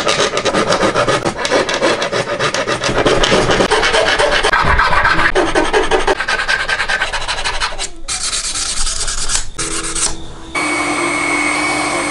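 Fast rasping as the curved edge of a small yosegi wood-marquetry pendant is filed against a round tool. Near the end a small drill runs with a steady hum as it bores a hole in the pendant.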